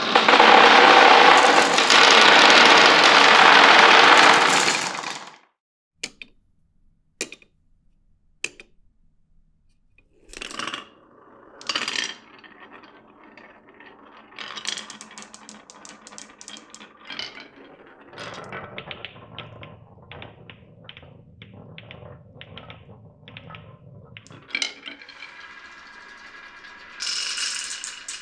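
Marbles running down a marble run: a loud dense rush of rolling balls for the first five seconds, then single sharp clicks a second or so apart, then a long stretch of balls rolling and clattering along the track with many small clicks.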